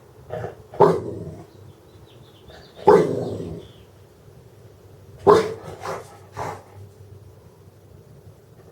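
A dog barking several times in short, separate barks, the loudest about a second in, near three seconds and a little past five seconds.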